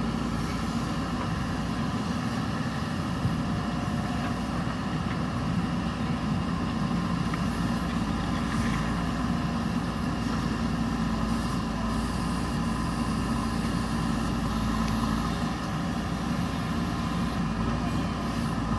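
JCB backhoe loader's diesel engine running steadily at an even pitch.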